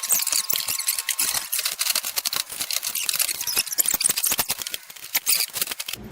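Plastic bumper cover and its clips being handled and pressed into place on a car, making dense, irregular clicking and rattling that stops abruptly near the end.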